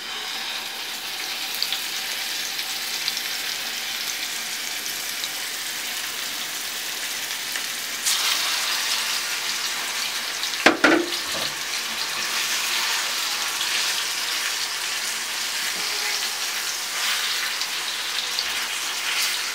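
Marinated rib-eye steaks sizzling in hot oil in a frying pan, the sizzle starting suddenly as the first steak goes in and growing louder about eight seconds in as more steaks are laid in. A sharp knock about eleven seconds in.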